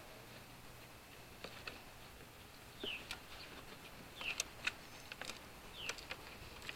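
Faint clicks and taps as a gloved hand handles the plastic nest compartments of a purple martin house. A bird gives three short chirps that fall in pitch, about a second and a half apart.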